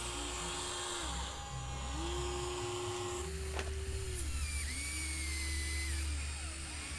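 Huina 1594 RC excavator's electric motors whining, each run ramping up in pitch, holding steady and winding down, several times over. One sharp click about three and a half seconds in.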